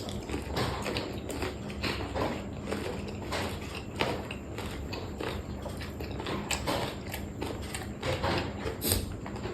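Close-up chewing and crunching of food, a quick irregular run of crisp bites and crackles.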